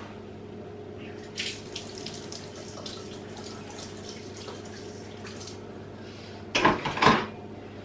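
Kitchen tap running into the sink, with light clinks of dishes. Near the end come two loud clatters about half a second apart.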